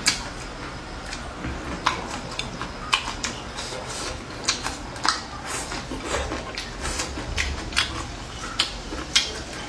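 Irregular light clicks and clinks of chopsticks against bowls and plates during a meal, about one or two a second.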